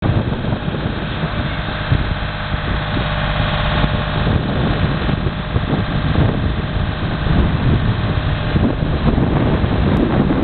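Reed harvester's engine running steadily, with wind rumbling on the microphone.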